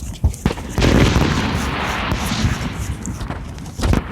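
Fireworks going off: a loud bang about a second in, then about three seconds of dense noisy rush, and another bang near the end.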